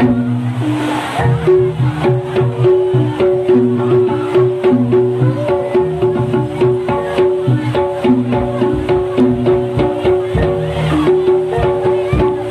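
Javanese jaranan music played live: rapid drum strokes over repeating, steadily held pitched percussion notes in a looping pattern.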